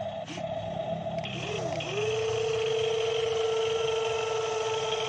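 Electric motors of a Huina radio-controlled Kobelco SK200 model excavator whining. The pitch rises and falls in short spurts, then holds steady from about two seconds in as the machine drives on its tracks.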